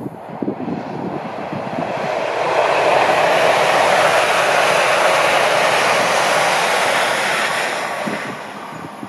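Two coupled ScotRail Class 385 electric multiple units passing, a rushing noise of wheels on rail and air that builds over the first two seconds or so, holds, then fades away near the end.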